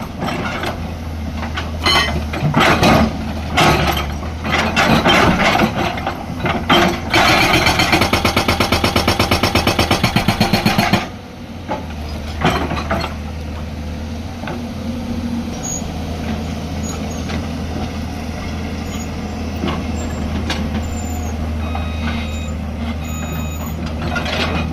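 Hyundai 215 excavator with a hydraulic rock breaker on hard stone: irregular clanks and knocks, then the breaker hammering in a rapid, even run of blows for about four seconds. It stops suddenly, leaving the excavator's diesel engine running steadily.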